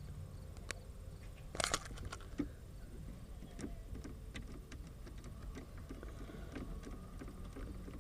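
Light clicks and ticks of hand work on plastic dashboard trim while screws are taken out, with a brief louder scrape or rustle about a second and a half in.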